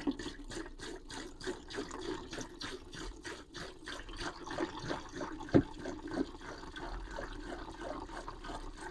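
White vinegar being poured from a bottle into a container, a continuous splashing, gurgling pour, with one sharp knock about five and a half seconds in.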